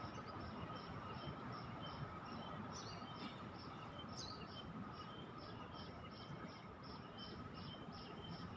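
Outdoor garden ambience: a steady series of short high chirps, about four a second, over an even low background hum, with a couple of brief sharper calls about three and four seconds in.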